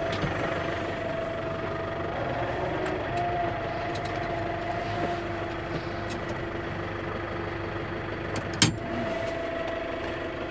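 Skid steer engine running steadily, its pitch stepping up slightly about two to three seconds in, with a single sharp knock about eight and a half seconds in.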